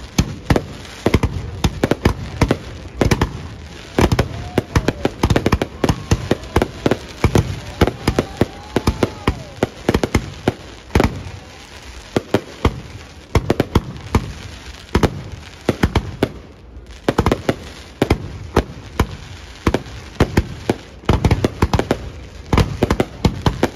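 Aerial fireworks display: a continuous rapid barrage of sharp bangs and crackles, several a second.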